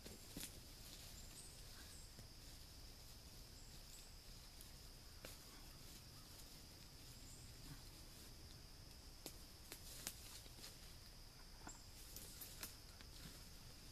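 Quiet woodland ambience, close to silence: a faint steady high-pitched insect drone with scattered small clicks and rustles, a few of them sharper near the end.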